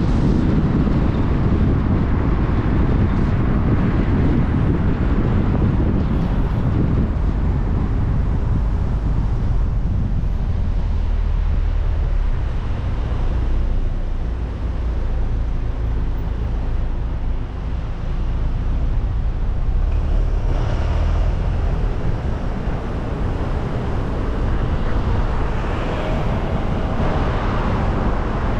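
Car driving, with steady low engine and road noise that dips slightly about halfway through.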